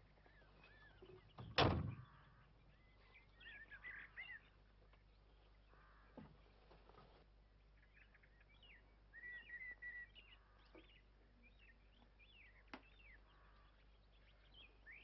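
A car door slams shut about a second and a half in, then small birds chirp on and off, with a few faint thuds.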